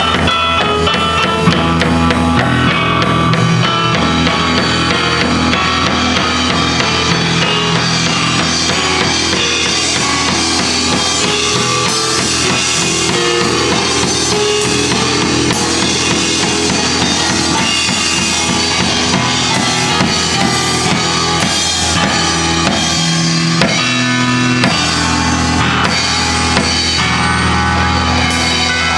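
Instrumental duo of digital piano and drum kit playing a song together, with a steady drum beat under the piano's chords and melody.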